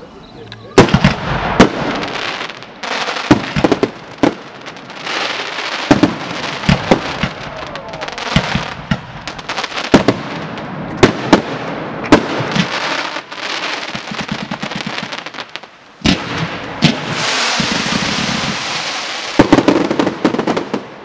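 Aerial fireworks shells bursting: a rapid series of loud bangs over a dense, continuous crackle from the bursting stars. It eases briefly about three quarters of the way through, then another loud bang starts it again.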